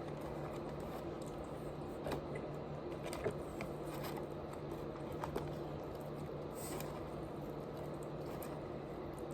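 Quiet eating sounds: faint munching with a few small clicks and taps scattered through, over a steady low background hum.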